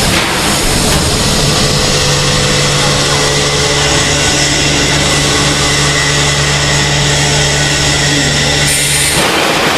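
MX700-1200 vacuum forming machine running: a loud, steady mechanical hum over a continuous rushing noise, the hum dropping away about nine seconds in.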